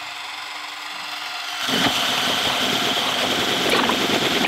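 Braun electric hand mixer running with its beaters in a bowl of butter, sweetener and egg batter, whipping it fluffy. About a second and a half in it gets louder, with a higher whine.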